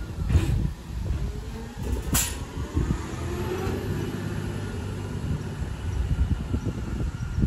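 Autocar McNeilus ZR garbage truck's natural-gas engine pulling away with a steady low rumble, a brief sharp hiss about two seconds in, and the engine note rising a second later as it accelerates.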